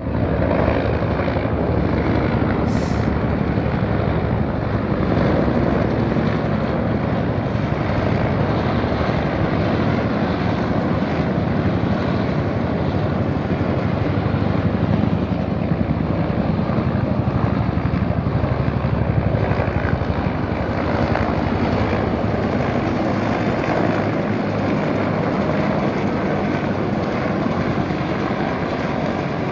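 Military helicopter flying overhead, its rotor beating with a steady, rapid chop that eases off slightly near the end. A brief high chirp sounds about three seconds in.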